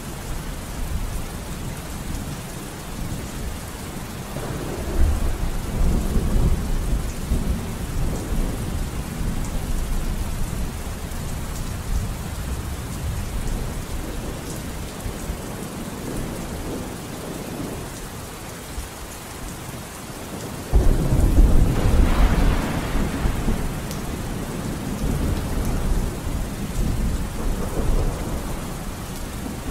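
Steady rain with rumbling thunder. The thunder swells about five seconds in, and a louder roll sets in suddenly about twenty-one seconds in and slowly dies away.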